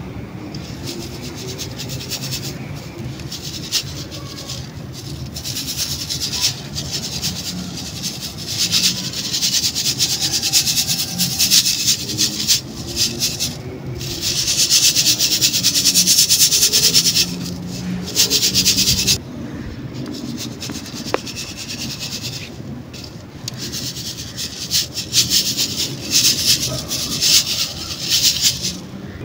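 Dry cement powder being shaken through a stainless-steel mesh sieve: a gritty, hissing rustle that comes in spells with short pauses, loudest about halfway through.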